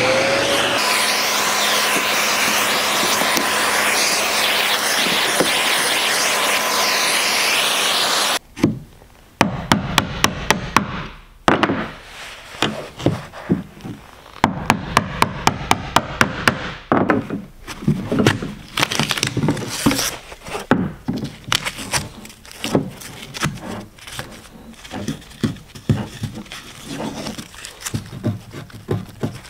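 DeWalt cordless trim router running steadily with a fixed whine, cutting wood, for about eight seconds, then stopping suddenly. It is followed by many sharp taps and knocks on wood, some in quick runs of several a second, with scraping, as the routed recess is worked by hand.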